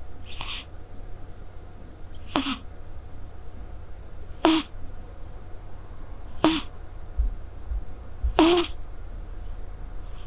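Scottish Straight cat snoring in its sleep, one short breath sound about every two seconds, five in all.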